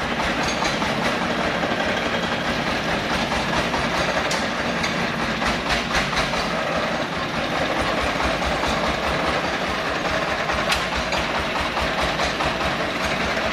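Engine of a homemade saw-carrying tractor running steadily as the vehicle drives slowly forward, with a fast even low chugging and a few sharp clicks.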